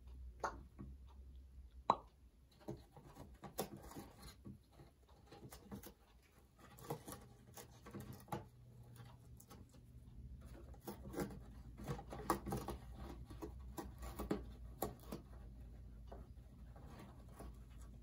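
Congo African grey parrot biting and tearing at a cardboard tissue box: irregular clicks and crunches of beak on cardboard, coming in busier clusters in the second half.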